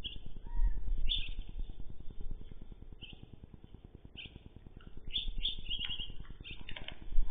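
Birds chirping in short, scattered calls over a low rumble.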